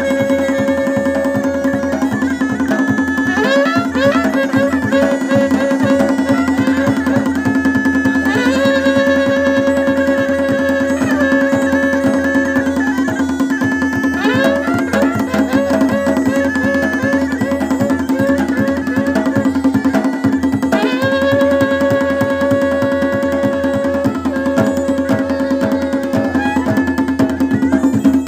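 Music: a melody with quick ornaments over a steady, unbroken drone, with dense drumming underneath.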